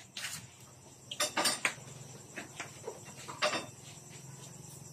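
Tableware clinking during a meal: scattered sharp clinks and taps of spoons and plates, with a cluster about a second and a half in and another clink about three and a half seconds in, over a low steady hum.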